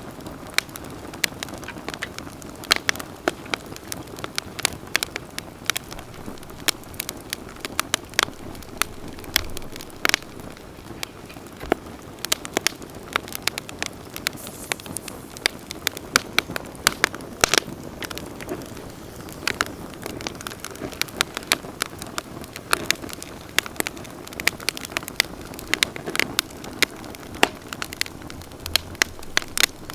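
Wood campfire burning steadily with frequent sharp, irregular crackles and pops over a soft hiss.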